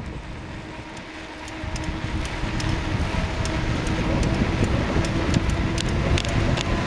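Car driving along a paved road: steady tyre and engine noise with a low hum, rising in level about two seconds in, with scattered light clicks.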